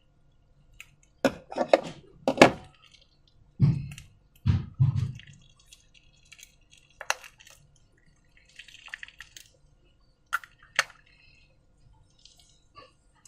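Slime being worked by hand in a container: a cluster of wet squelches about a second in, then heavier low squishes, and a few sharp clicks and taps toward the end.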